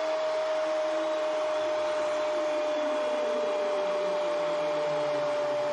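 Steady stadium crowd noise after a goal, with one long, level held tone running through it and a fainter lower tone sliding downward about three seconds in.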